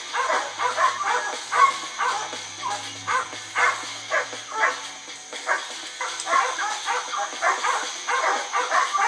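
Hounds baying a wild hog they hold at bay in the brush: a steady run of barks, several a second.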